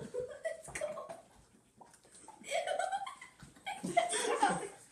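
Two people laughing and giggling in short bursts, the loudest about two and a half seconds in and again near the end.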